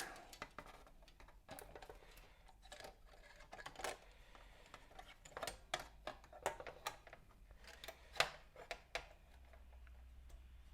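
Faint, scattered small clicks and rubbing of hands handling turntable parts and pulling wiring through, at irregular moments with no steady rhythm.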